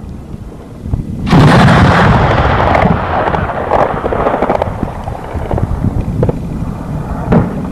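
A heavy explosion goes off about a second in, its rumble dying away over several seconds. A few single sharp gunshots crack near the end.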